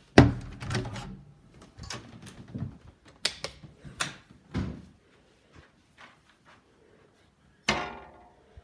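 A run of household knocks and clunks, like a drawer or door being handled. The loudest comes just after the start and another near the end, each ringing briefly, with smaller clicks and bumps between them.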